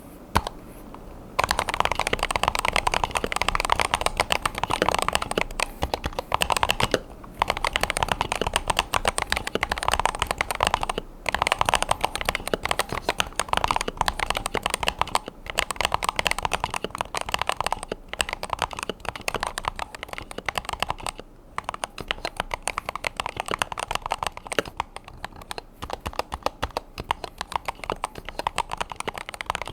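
Fast, continuous typing on a Razer Huntsman V3 Pro TKL 8K keyboard with analog optical switches: a dense run of keystrokes. It starts about a second and a half in and breaks off briefly a few times.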